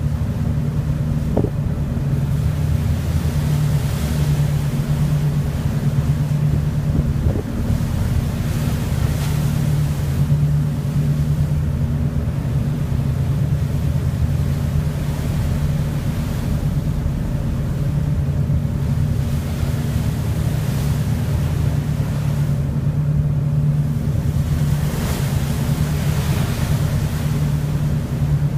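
A large ship's bow pushing through the sea, the bow wave rushing and splashing along the hull in surges every few seconds. Under it runs a steady low hum from the ship's machinery, with wind buffeting the microphone.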